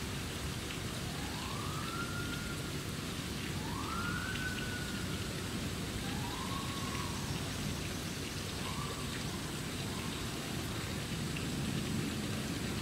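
Steady hiss of rain, with a faint siren wail rising and falling about five times, each wail fainter and shorter than the last.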